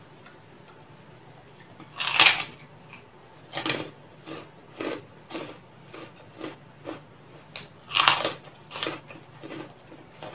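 Crispy kerupuk crackers bitten with two loud crunches, about two seconds in and again about eight seconds in, and chewed with a run of smaller crunches about every half second in between and after.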